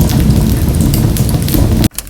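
Wood fire crackling and popping in a wood-burning stove, dense and loud with a deep rumble under the crackles. It cuts off suddenly just before the end, leaving only faint scattered crackles.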